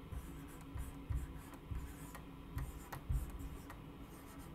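Faint room tone with a low steady hum, broken by scattered soft low knocks and a few light clicks.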